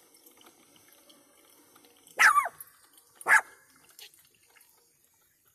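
Two short, loud animal calls like barks, about a second apart, over the faint trickle of coffee running from a Mr. Coffee drip maker into its carafe.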